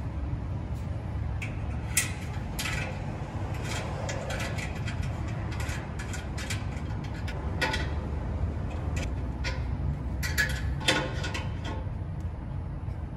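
Scattered small metal clicks and clinks of a compression fitting being handled and fastened onto a fuel tank's vent tube, thickest about two seconds in and again around ten to eleven seconds in, over a steady low rumble.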